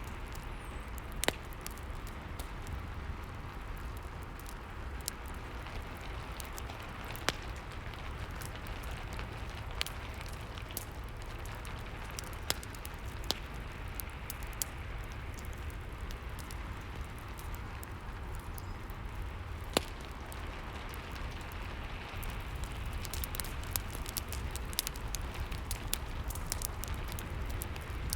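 Steady rain with a wood fire crackling: a constant hiss and low rumble, broken by scattered sharp pops that come more often near the end.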